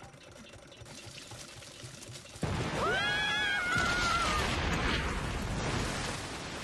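Cartoon sound effects: a faint low rumble from a drilling gadget boring into rock, then about two and a half seconds in a sudden loud burst as the rock breaks open, running on as a rush of gushing water. A rising yell sounds over the burst.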